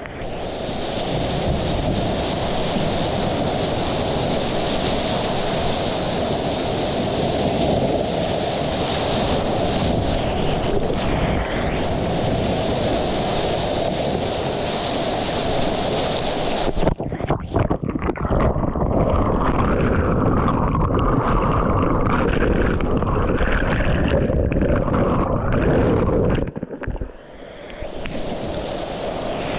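Colorado River whitewater rushing and splashing around a kayak in a rapid, with wind buffeting the action camera's microphone. About two-thirds of the way through, the roar turns choppy and breaks up in places, and near the end it dips briefly before picking up again.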